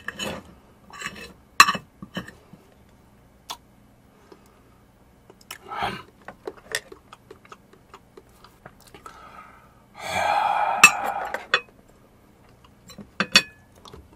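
Close-miked eating sounds: scattered clicks and clinks of a metal fork and knife against a ceramic plate, with a louder mouth noise lasting about a second and a half about ten seconds in.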